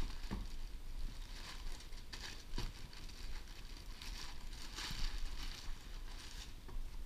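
Clear plastic bag crinkling and rustling in irregular bursts as it is pulled open and peeled back from a headlight assembly.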